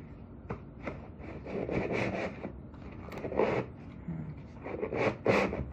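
Cardboard pizza-box drawers sliding and scraping against each other as they are pulled out of a tiered box: several short scrapes with a few light clicks.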